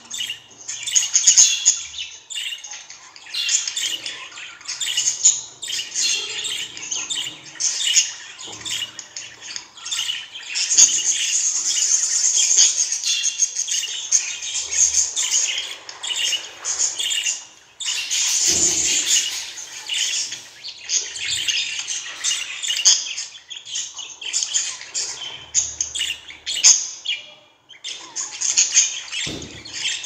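Female budgerigar chattering and warbling: a fast stream of chirps and squeaks, with a longer unbroken run of warbling about halfway through and a couple of brief pauses.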